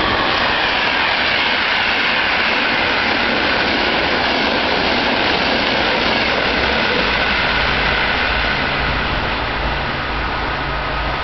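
Passenger train of coaches passing at speed on a nearby track: a loud, steady rush of wheels on rail, with a few tones falling in pitch in the first seconds. The noise eases slightly near the end as the train draws away.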